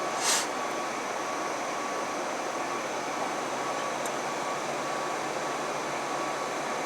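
Steady whooshing of a ventilation fan, with a short soft hiss just after the start.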